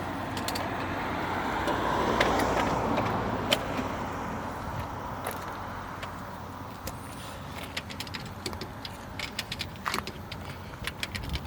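A car running, its sound swelling about two seconds in and then fading, over a steady low hum, with many light clicks and clinks throughout.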